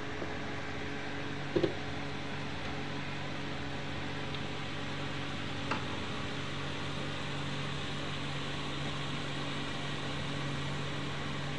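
Small electric fan running steadily inside a homemade egg incubator, a continuous hum with a low drone. A short, louder sound breaks through once about one and a half seconds in.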